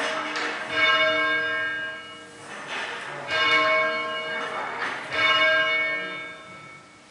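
Church tower bells rung by rope: several strokes one to two seconds apart, each ringing on for about a second before fading.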